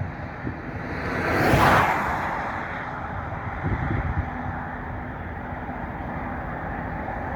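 Road traffic noise, with one vehicle swelling past about one and a half seconds in.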